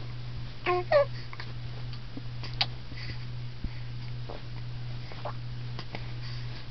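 A pet hiccuping: short, sudden hiccups roughly once a second, irregularly spaced. The loudest are two in quick succession about a second in, each with a brief squeaky note. A steady low hum runs underneath.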